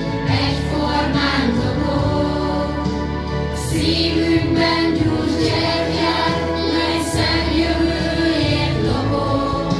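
A mixed group of children and adults singing a Hungarian song together over an instrumental backing track.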